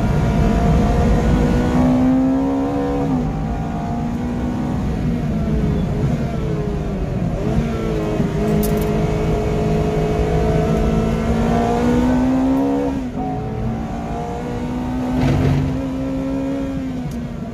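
Ferrari 430 Challenge V8 engine heard from inside the cabin at race pace. The revs climb under acceleration, drop sharply at gear changes and braking for the corners, then climb again several times.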